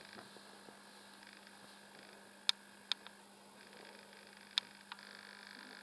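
Quiet room with a steady electrical hum, broken by five short sharp clicks between about two and a half and five seconds in, three of them louder.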